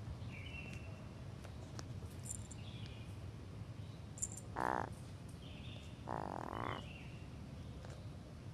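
Tame black crow giving two harsh, croaking calls, a short one about halfway through and a longer one about a second and a half later. Faint high chirps sound between them.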